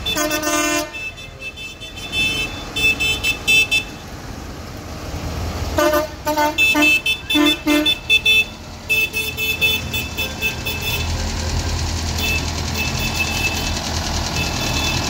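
Tractor horns tooting as the tractors pass: one toot at the start, then four short toots in quick succession a little over halfway through, over a rapid, repeating high-pitched beeping. A low diesel engine rumble builds near the end as another tractor drives by.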